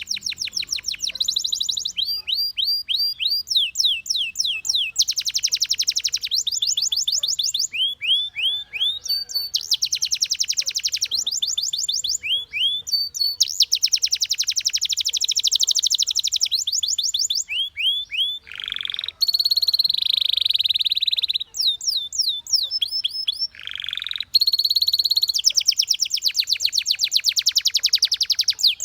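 Domestic canary singing continuously in fast trills: runs of rapidly repeated, downward-sweeping notes alternate with buzzy rolled phrases, the pattern changing every second or two.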